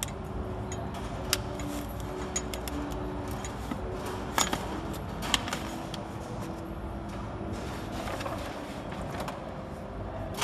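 Steady hum of a multi-lane liquid sachet packing machine, with a few sharp clicks and taps of metal parts, the loudest about four and a half seconds in.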